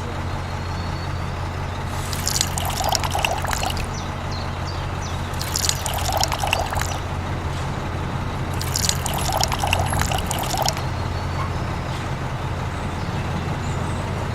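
A small motor hums steadily. Over it come three spells of liquid pouring and splashing, each lasting about one and a half to two seconds.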